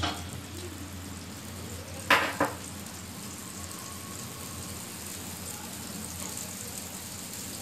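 Butter tadka with mustard seeds and a whole dried red chilli sizzling steadily in a small tempering ladle over a gas flame, with two sharp pops a little after two seconds in.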